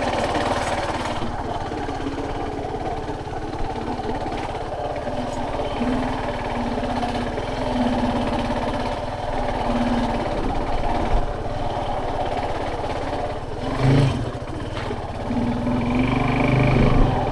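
Suzuki Gixxer SF250's single-cylinder engine running as the bike is ridden slowly over a rough dirt road, its note rising and falling with the throttle. A single knock sounds about fourteen seconds in.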